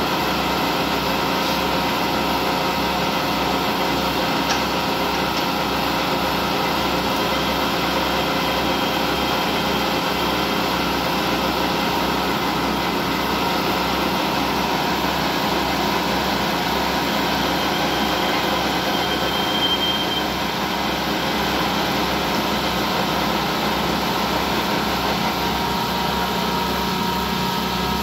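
Vertical lathe running steadily while its tool cuts a groove into a large rotating metal ring: a continuous machine hum with several steady tones under the noise of the cut. A faint high whine from the cut comes and goes twice.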